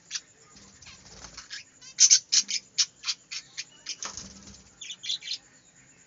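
Budgerigars chattering in a run of short, sharp, high chirps, loudest around two seconds in, with brief wing flutters about half a second in and again near four seconds.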